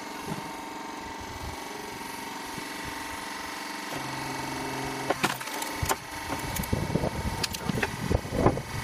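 Homemade vertical hydraulic log splitter: the hydraulic unit runs steadily, and its tone changes about four seconds in as the wedge comes down. The log round then cracks and splinters again and again as it is split, with the loudest crack near the end.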